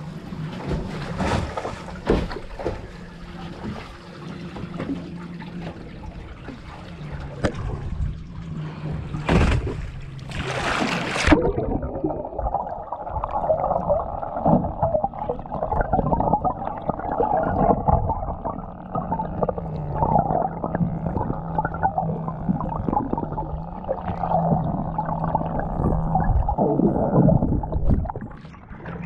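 Water rushing and gurgling around a moving sailing yacht, over a faint steady low hum. About eleven seconds in, the sound turns abruptly muffled and narrower.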